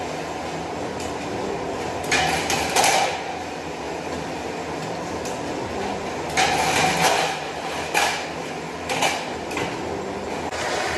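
Rollform line for steel CD drywall profiles running steadily, with several louder bursts of metallic clatter: about two seconds in, again around six to seven seconds, and twice more shortly after.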